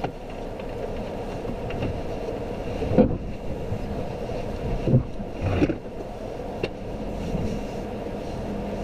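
Jeep Renegade Trailhawk crawling slowly over a muddy, rutted trail, heard from inside the cabin: a steady rumble of engine and tyres, broken by several knocks and thumps as the vehicle jolts over the ruts. The loudest knock comes about three seconds in.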